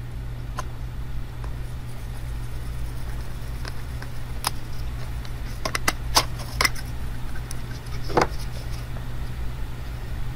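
Scattered small clicks and taps of a screwdriver on screws and a plastic battery holder, a cluster of them about halfway through, over a steady low hum.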